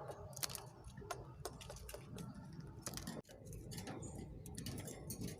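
Faint, irregular sharp clicks and taps, a couple every second, over quiet room noise.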